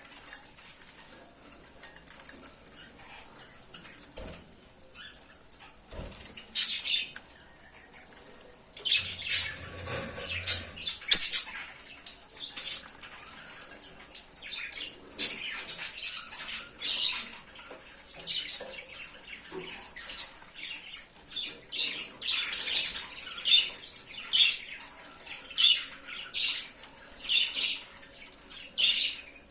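Lovebirds giving short, shrill chirps and squawks, scattered at first, then about once a second through the second half.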